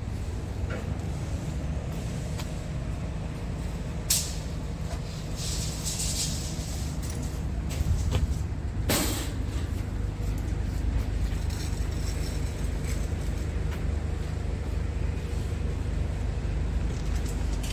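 Scania G450 truck's 13-litre inline-six diesel idling with a steady low rumble, with two short hisses of released air about four and nine seconds in.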